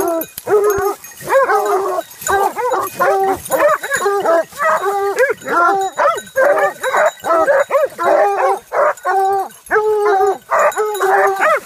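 An animal's voice giving a fast, unbroken run of short, pitched whining cries, about two or three a second, each one arching up and falling back.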